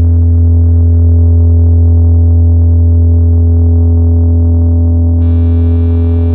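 Erica Synths Perkons Voice eurorack module playing a self-generating patch: a loud, steady low synth drone with held tones above it. About five seconds in, a bright, high layer of overtones comes in on top.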